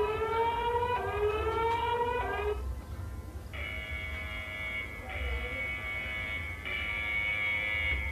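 Emergency alert alarm tones: two rising siren-like sweeps, then after a short pause a harsh, steady buzzing tone that sounds in blocks of about a second and a half with brief breaks between them.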